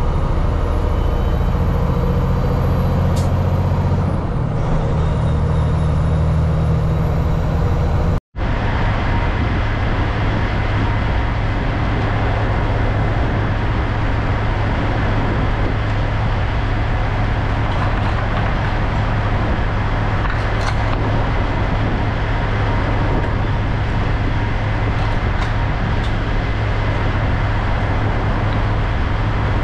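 Kenworth W900L semi truck's Cummins X15 diesel running down the road: a steady engine drone with road noise. It breaks off abruptly about eight seconds in, then carries on unchanged.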